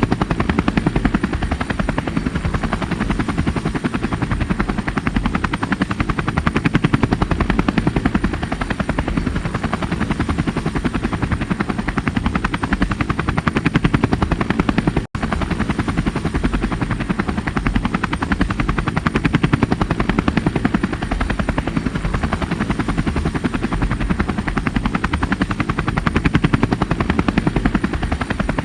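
Helicopter rotor chopping in a fast, even, steady beat, dropping out for an instant about halfway through.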